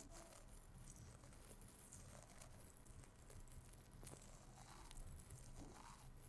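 Near silence with faint soft crackles and light taps scattered through it.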